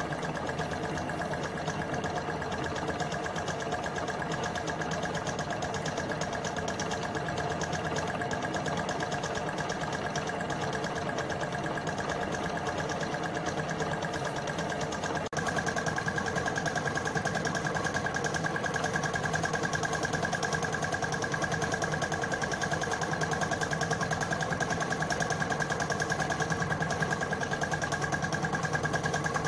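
Homemade gamma-type Stirling engine running steadily on a methylated-spirits burner: a fast, even mechanical clatter from its crank, connecting rods and brass flywheel, with a steady whirring tone over it. It gets louder about halfway through.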